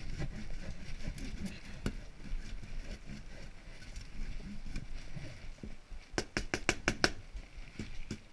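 Wood being sanded: irregular, scratchy rubbing strokes of abrasive over the grain. About six seconds in comes a quick run of about seven sharp clicks.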